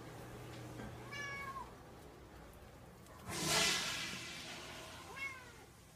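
Domestic cat meowing: two short meows, one about a second in that drops in pitch at its end and another near the end. Between them, about halfway through, comes a brief loud rush of noise, the loudest sound here.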